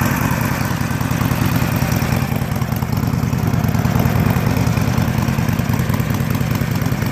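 2017 Harley-Davidson Forty-Eight's 1200 cc air-cooled V-twin idling steadily on its stock exhaust, a low even rumble that is not too loud.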